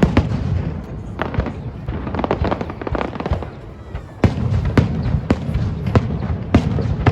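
Aerial fireworks going off in a rapid, irregular run of sharp bangs over a low rumble. The bangs ease off a little past halfway, then come back thicker and louder.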